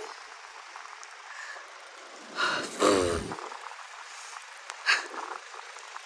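Steady hiss of strong wind blowing through a heavy snowfall. About three seconds in comes a brief voice sound with a deep rumble of wind buffeting the microphone, and a short tick follows about two seconds later.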